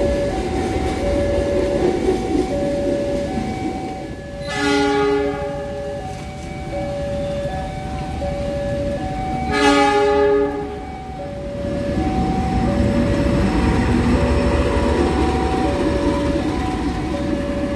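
Level-crossing warning alarm chiming steadily in two alternating tones, over the steady hiss of heavy rain. A diesel locomotive horn sounds twice, two long blasts about five seconds apart.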